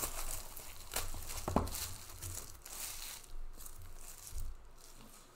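Clear plastic wrapping being torn and crumpled by hand off a trading-card box, crackling. It is busiest for about three seconds, then dies down to softer rustling.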